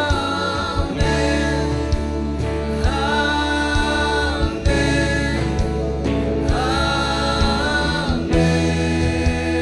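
Male and female worship singers hold long notes on the refrain "Amen, amen, amen" over a live praise band, with sustained bass and a steady beat about once a second.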